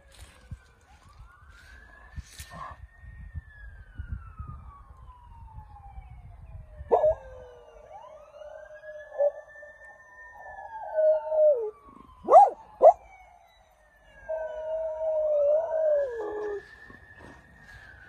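Norwegian Elkhound howling along with a police siren: two long, wavering howls, the second ending in a falling note, with a few short sharp yips between them. Behind them the siren wails, rising and slowly falling about every seven seconds.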